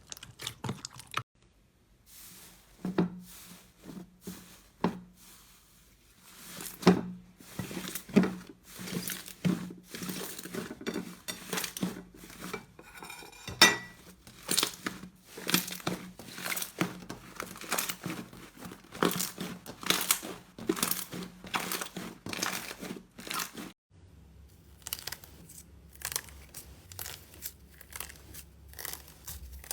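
Slime being squeezed, pressed and poked by hand: a dense, irregular run of crackling clicks and sticky pops. A steady low hum lies under the last few seconds.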